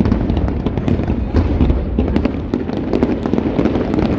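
Fireworks bursting in a dense, continuous barrage: many rapid crackles and bangs over a steady low rumble of booms.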